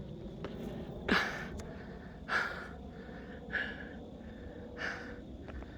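A man breathing hard, out of breath from climbing a steep trail: four heavy breaths about a second and a quarter apart.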